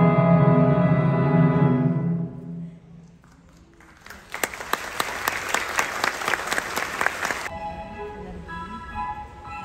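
Orchestral music with strings holds a loud chord, then fades out. After a short lull an audience applauds for about three seconds, then the clapping cuts off and quieter orchestral music resumes.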